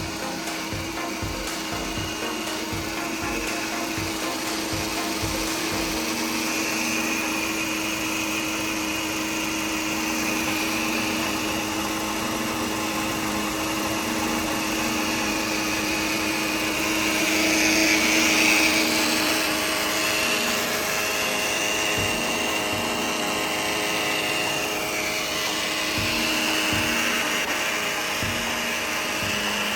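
Bosch auxiliary electric water pump on a 2013 Mercedes C250 running with a steady hum, a high whine that wavers and swells about two-thirds of the way through, and irregular faint ticks. This uneven noise is the one the owner traces to the pump, which keeps running after the engine is shut off.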